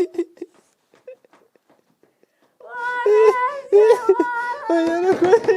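After about two seconds of near silence, a voice gives a run of long, high, wavering notes, one after another.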